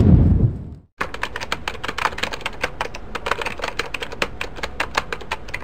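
A whoosh sound effect dying away in the first second, then about a second in, rapid typewriter-key clicking as a sound effect, many irregular clacks per second.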